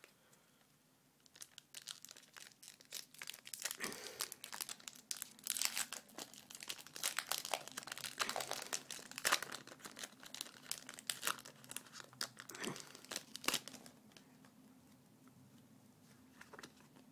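Foil wrapper of a Pokémon trading card booster pack crinkling and tearing as it is handled and opened by hand. The crackles come thick and fast for about twelve seconds after a brief quiet start, then die down near the end.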